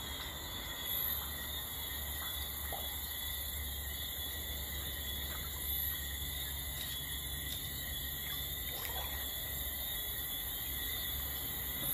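Steady chorus of night insects such as crickets, over a low steady hum, with a few faint knocks about one, three and nine seconds in.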